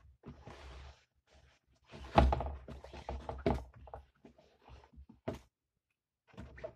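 Handling noise of a zippered gimbal carrying case and the gimbal being moved about on a desk: a loud thunk about two seconds in, a cluster of knocks after it, then scattered clicks and knocks.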